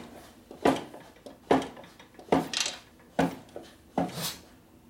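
Metal clanks from a wrench working to turn a motorcycle V-twin over by hand, five strikes at an even pace of a little under one a second, each ringing briefly.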